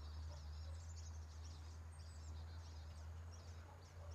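Small birds chirping in quick, high twitters, busiest in the first two seconds and thinning out after, over a steady low rumble.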